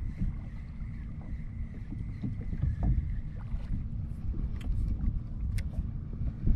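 Wind rumbling on the microphone and water slapping against a plastic kayak hull on choppy water. For the first half a faint steady whine comes from a spinning reel being cranked to retrieve a lure; it stops about three and a half seconds in, and a few light clicks follow.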